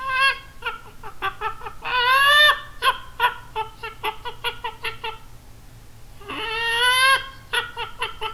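A voice imitating a chicken: runs of quick short clucks, broken twice by a longer drawn-out squawk, about two seconds in and again near the end.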